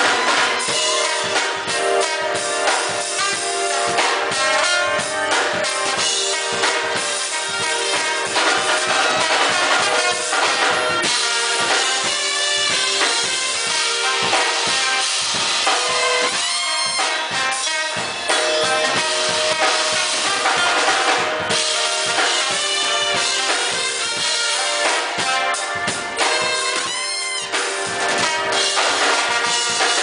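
Live band playing with a full drum kit driving a steady beat under a horn section of saxophone and trombone holding and punching sustained notes.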